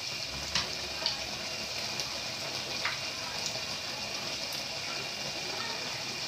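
Mushabbak batter spirals deep-frying in hot oil in a small pan, a steady sizzle, with a few light clicks of metal tongs turning them.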